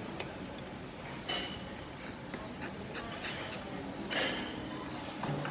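Metal spoon stirring and scooping crushed ice in a cut-glass dessert bowl, with scattered light clinks and scrapes against the glass.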